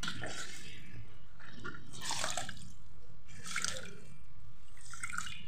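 Water dripping and splashing from a wet cleaning cloth in a bowl of water, in four or five short bursts.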